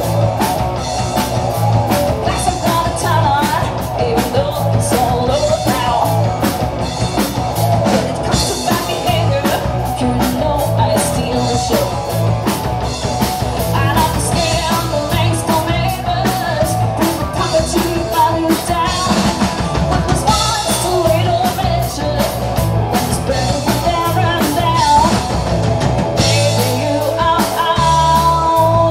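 Live rock band playing: a woman singing over electric guitars and a drum kit with a steady beat.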